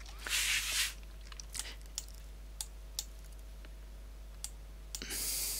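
Sparse, sharp computer mouse clicks at uneven intervals while a trading chart is scrolled and re-zoomed, over a faint steady electrical hum. Two short breaths stand out, one just after the start and one near the end.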